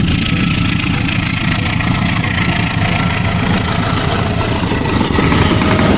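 Diesel-electric locomotive engine running steadily as it hauls passenger coaches past, a continuous low engine sound with fine rapid pulsing.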